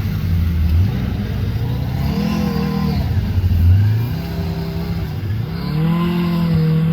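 Snowmobile engine revving, its pitch rising and falling several times.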